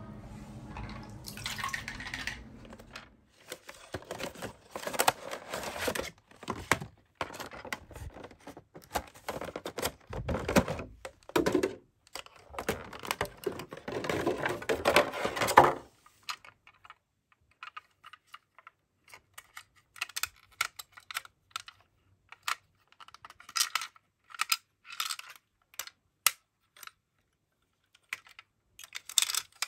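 Clear plastic packaging crinkling as a toy ambulance model is unwrapped, followed by scattered light clicks and taps as its doors are opened and handled.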